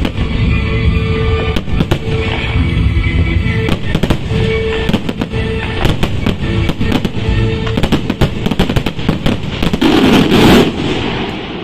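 Aerial fireworks barrage: many bangs in quick succession, with music playing over them. About ten seconds in comes a loud, dense burst, and then the noise dies down.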